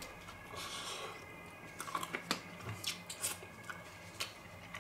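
A person biting into a slice of pizza and chewing it, with small crunching clicks at irregular intervals.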